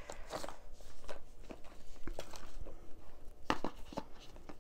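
Light handling noise of cards on a table: scattered soft taps and clicks, a few seconds apart, with the sharpest pair about three and a half seconds in.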